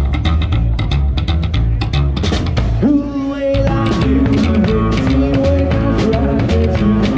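Live rock band playing an instrumental intro, with bass guitar, drums and electric guitar on a steady beat. The beat breaks briefly about three seconds in while a guitar note rings on.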